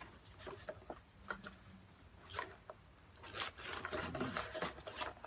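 Small cardboard box being handled and pried open with gloved hands: faint rubbing and scraping of cardboard flaps with a few small ticks, busier in the second half.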